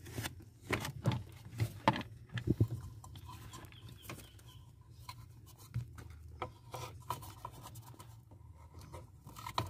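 Hands working a plastic wiring connector and harness under a car dashboard: rubbing and rustling with scattered sharp plastic clicks and knocks, most of them in the first three seconds, as the connector's latch is pressed to unplug it.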